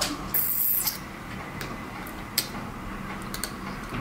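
A few scattered sharp clicks from a computer mouse and keyboard, the loudest about two and a half seconds in, with a brief hiss near the start.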